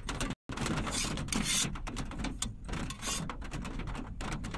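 Rain pattering on a campervan's roof that has no sound insulation: a dense, irregular run of small taps over a steady hiss.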